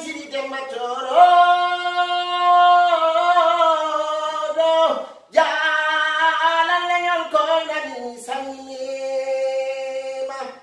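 A man singing solo without accompaniment, holding long drawn-out notes and sliding between them, with a brief pause for breath about five seconds in.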